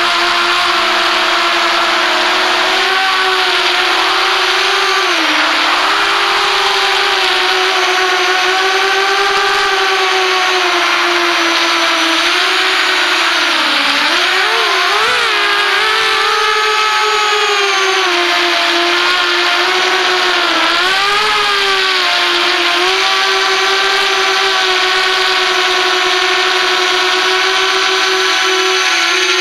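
Small quadcopter's brushless motors and propellers whining steadily, heard from the onboard camera. The pitch dips and wavers a few times as the throttle changes.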